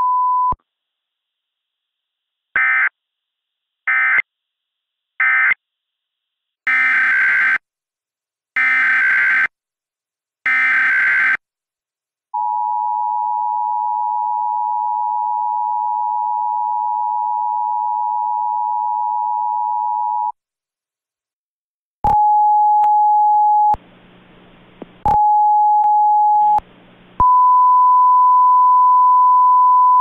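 Emergency Alert System tones. A steady tone cuts off about half a second in. Then come three short end-of-message data bursts, three longer SAME header data bursts, and the two-tone EAS attention signal held for about eight seconds. Near the end, two steady beeps with quieter hiss between them lead into a single higher steady tone.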